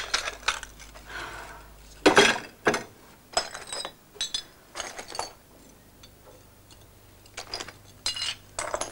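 Dishes and cutlery clinking: a run of light, irregular clinks, some ringing briefly.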